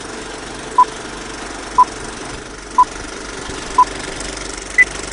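Vintage film-leader countdown sound effect: a short beep once a second, four at the same pitch and a fifth higher one near the end, over a steady film-projector rattle and crackle.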